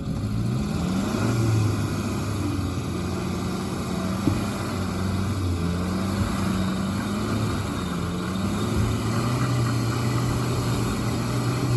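Suzuki Samurai engine running under load, its pitch rising at the start and then going up and down, as the stuck car is worked in deep snow. A single short click about four seconds in.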